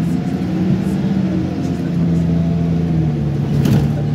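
Optare Tempo single-deck bus under way, its engine giving a steady drone that dips slightly in pitch and comes back up. A short knock or rattle sounds near the end.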